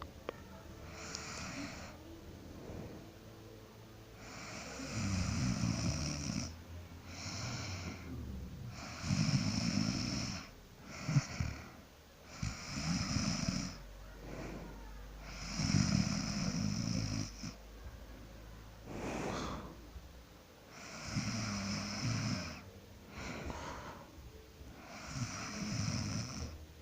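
A sleeping person snoring, with a loud snore about every four seconds and softer breaths between.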